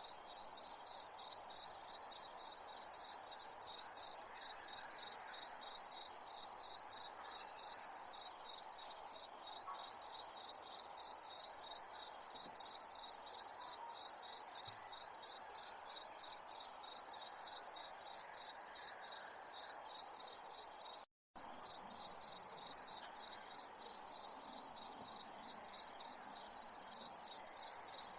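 Crickets chirping in a steady, even rhythm of several high chirps a second. The sound cuts out completely for a split second about three-quarters of the way through.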